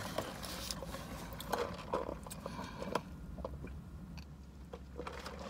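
A person chewing food, with faint small clicks and soft rustles of eating.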